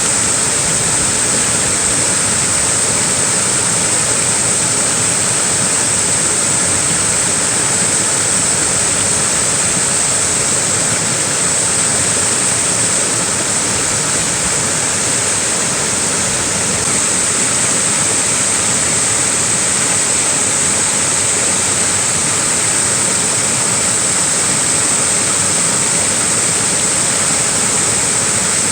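Small waterfall with water pouring and splashing in a constant, even rush.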